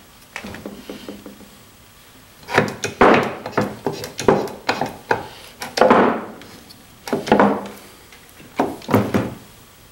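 Short metallic clanks and knocks on a wooden workbench as a hand-operated hydraulic pump and ram are worked against a leaf spring pack. The knocks come in a run of quick, irregular strokes starting about two and a half seconds in.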